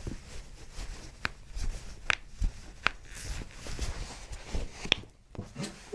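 Joints cracking as toes are manipulated in a chiropractic adjustment: four sharp cracks spread over a few seconds, over low rustling from handling.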